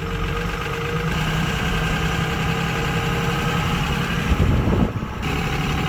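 Dodge Ram dually's engine running steadily as the truck drives, heard from inside the cab; its transmission is damaged and running on a mix of other fluids. About four seconds in, a brief cluster of low thumps.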